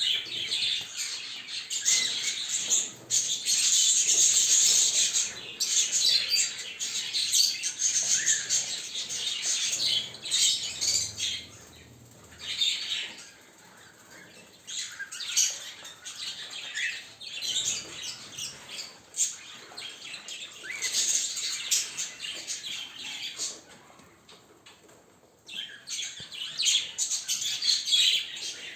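Small birds chirping and twittering busily in rapid high-pitched calls, with two short quieter lulls.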